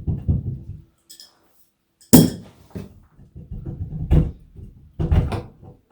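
Metal clanks and knocks of hand tools and valve parts being handled: a short rattle at the start, one sharp strike about two seconds in (the loudest), and further knocks near four and five seconds.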